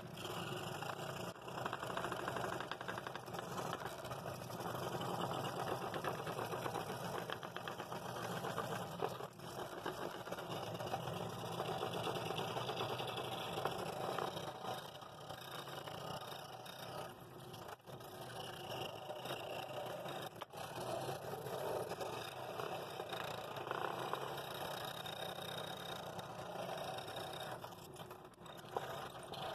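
Scroll saw running with a number 7 blade, cutting steadily through a thick block of dense poplar, a very difficult cut for that blade.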